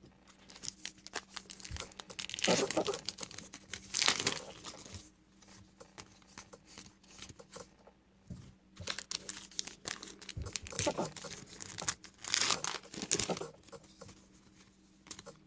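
Trading-card pack wrapper being torn open and crinkled in the hands, in several short crackly bursts.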